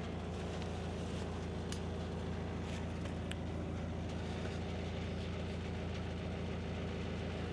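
An engine idling steadily with an even low hum, with a couple of faint ticks.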